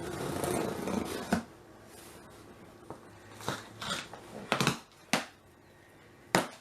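A cardboard box and its packaging being handled and opened: a stretch of rustling at first, then a series of short scrapes and clicks.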